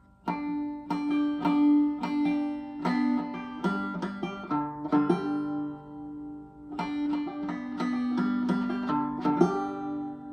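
Five-string banjo played clawhammer style by a beginner: a run of plucked, ringing notes that stops for a moment about six seconds in, then picks up again, the last notes left ringing.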